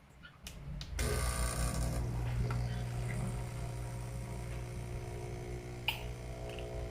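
Espresso machine switching on after a couple of clicks, its pump then running with a steady electric hum.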